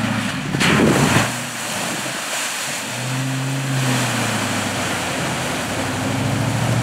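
1997 Land Rover Defender 90's V8 engine pulling the truck through a deep mud puddle, with muddy water splashing and sloshing around the tyres. The engine note swells about three seconds in.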